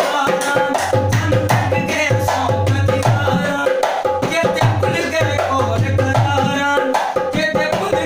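A newly made dholak played with both hands in a fast, steady rhythm, deep bass strokes under sharp treble slaps, with a man singing over it and hand claps.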